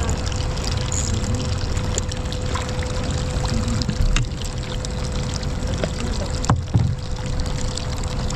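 Water trickling and pouring steadily aboard a fishing kayak, over a faint steady hum, with a few small knocks about four and six and a half seconds in.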